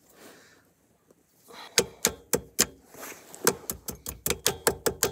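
Hand tools working on metal at the ATV's axle hub: a run of sharp, ringing metal clicks that starts about two seconds in, at three or four a second, and quickens to five or more a second.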